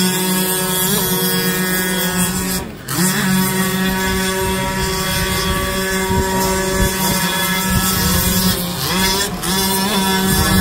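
Steady high-pitched motor buzz, with a few short rising revs, broken briefly twice.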